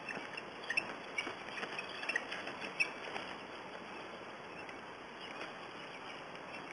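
Dry leaves and twigs rustling and crackling as two bald eagles grapple on the forest floor: a flurry of short scratches and snaps for the first three seconds, then fainter.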